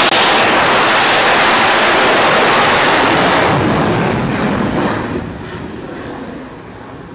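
F/A-18 fighter jet launched off an aircraft carrier's steam catapult: a sudden, very loud jet roar that holds for about three seconds, then fades away over the next few as the jet leaves the deck.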